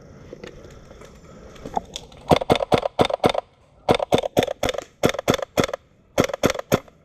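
Airsoft rifle firing rapid shots in four quick strings of about four to six shots each, starting about two seconds in.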